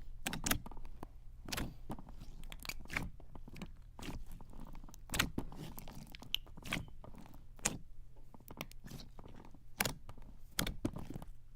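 Thick, clear slime being pressed and squished by hand, giving a string of irregular sticky clicks and crackly pops.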